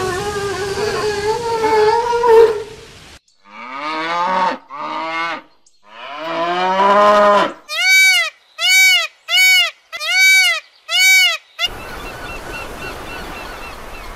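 Sea lions calling with a long, wavering cry over surf, then further calls that slide in pitch. Then Indian peafowl give five short, loud, arched calls in quick succession, followed by steady water noise.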